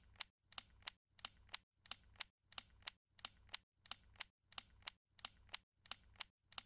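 Faint tick-tock of sharp clicks from the outro sound effect, about three a second, alternating louder and softer like a clock ticking.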